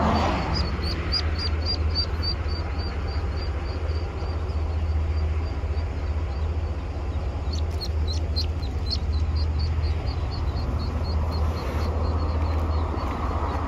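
Ducklings trapped in a storm drain peeping in distress: rapid runs of high, thin peeps, about four or five a second, in two bouts with a pause of a few seconds between them. A steady low hum runs underneath.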